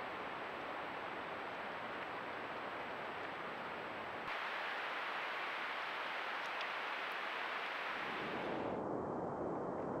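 Steady outdoor background hiss picked up by a trail camera's microphone, with no distinct calls or footsteps. It changes abruptly about four seconds in and again near the end, where one clip cuts to the next.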